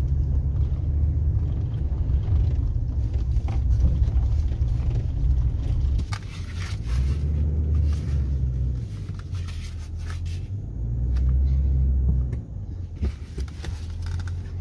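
Low, uneven rumble of a vehicle driving slowly over a dirt track, heard from inside the cabin, with a few short knocks and rattles.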